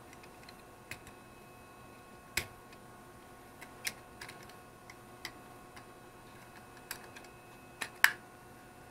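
Scattered sharp clicks and taps of hard plastic parts as a toy quadcopter's body shell is pushed and fitted back onto its frame, with the loudest, a quick double click, near the end.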